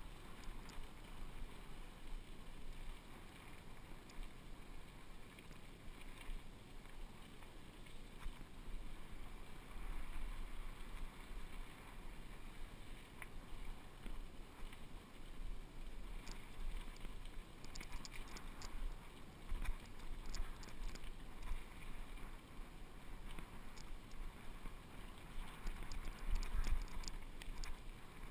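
Fuji hardtail mountain bike rolling downhill on a dirt trail: a steady rush of tyre noise and wind buffeting on the microphone. Short sharp rattles and clicks from the bike over bumps come more often in the second half.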